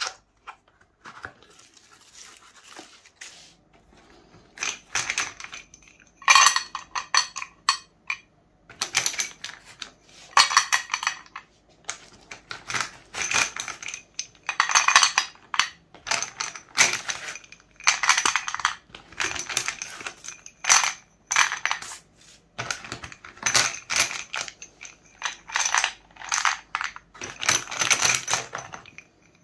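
Sticks of dustless school chalk clinking and clattering against one another as handfuls are taken out of a cardboard box. The clattering comes in repeated bursts a second or two long, and is fainter in the first few seconds.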